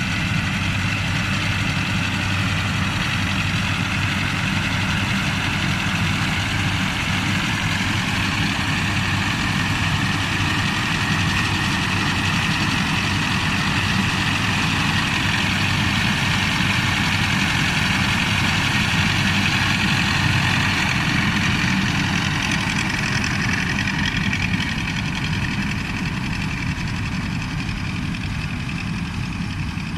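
Heavy diesel farm machinery running steadily: a low engine drone with a high, steady whine over it, getting a little quieter in the last few seconds.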